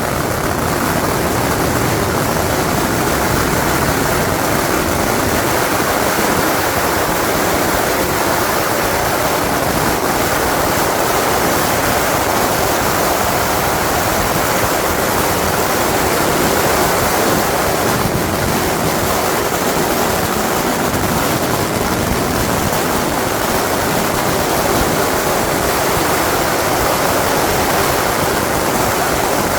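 Long strings of firecrackers going off together in a dense, unbroken crackle that runs steady and loud throughout.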